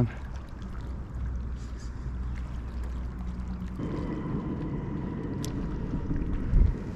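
Wind buffeting the microphone beside open water: a low rumble that thickens abruptly about four seconds in, with one dull knock shortly before the end.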